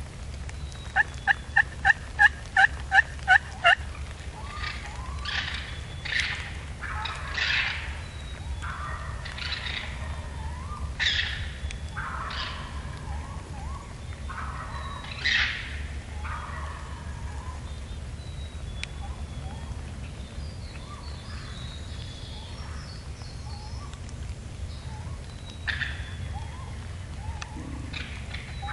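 Wild turkey toms gobbling: a run of rough, rattling gobbles between about four and sixteen seconds in, and another near the end. Before them comes a quick, even string of about ten turkey yelps.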